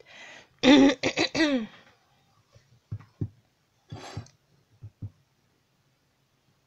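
A woman coughing in a quick run of about four coughs about a second in, followed by a few soft, low knocks.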